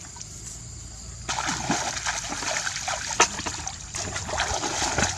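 Splashing and sloshing in shallow water, beginning about a second in as a run of quick irregular splashes, with one sharp slap about three seconds in.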